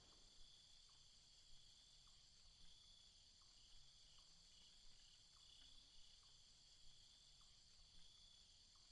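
Near silence: a faint, steady high chirring of insects with a pulsing texture, and soft short chirps about three every two seconds.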